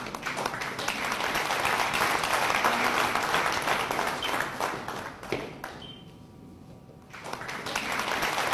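Audience applauding. The clapping dies away about six seconds in and starts up again a second later.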